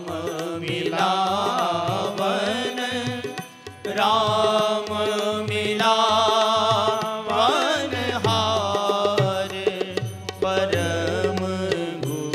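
A man singing a devotional bhajan in long held phrases over instrumental accompaniment, with a short break just before four seconds in.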